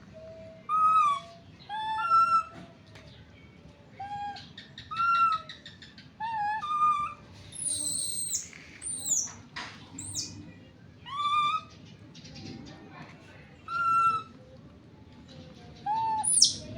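Baby monkey calling: short, arched, whistle-like coos repeated every second or two, with a few very high, falling squeals in the middle and again near the end.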